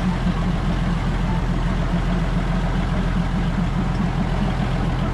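A large engine idling steadily with a low, even throb.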